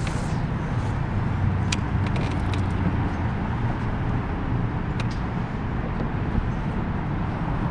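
Steady low rumble of city road traffic, with a few light clicks about two seconds in and again near five seconds.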